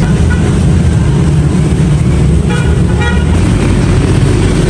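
Street traffic: a steady low engine rumble, with two short vehicle horn toots about half a second apart, a little past the middle.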